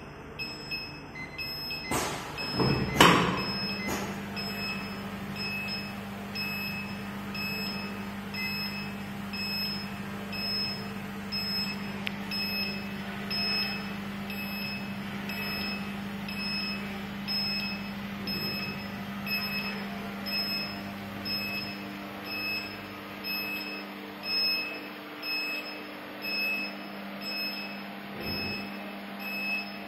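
Alu-alu blister packing machine with its buzzer beeping about once a second. A loud knock comes about three seconds in, after which a steady motor hum sets in and runs on.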